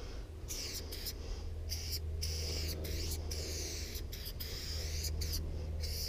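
Aerosol spray paint can hissing in many short bursts with brief breaks between them, as a 600ml Molotow Burner copper chrome can with a pink dot fat cap sprays paint onto a wall.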